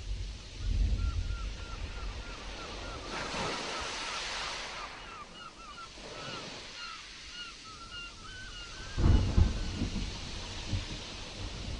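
Stormy sea surf and wind, with wind rumbling on the microphone; a wave surges about three seconds in and a deep gust or crash hits about nine seconds in. A quick run of short, high chirps goes on through most of it.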